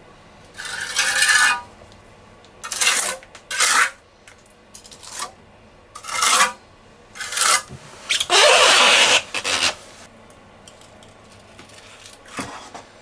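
A flat hand trowel is being drawn in repeated strokes across wet self-levelling compound, scraping and smoothing the surface. There are about seven irregular strokes; the longest and loudest, about eight seconds in, lasts roughly a second and a half.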